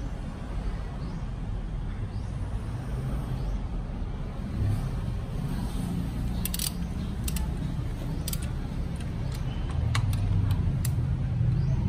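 Sharp metallic clicks, a dozen or so at uneven intervals from about halfway through, as a ratchet-head click-type torque wrench and its socket are fitted onto a car wheel's lug nut to check its torque. A steady low rumble of vehicle noise lies underneath.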